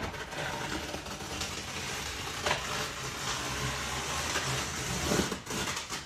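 Utility knife scraping and cutting through the packing tape and cardboard of a large carton, a steady scratchy rustling with a light knock about two and a half seconds in.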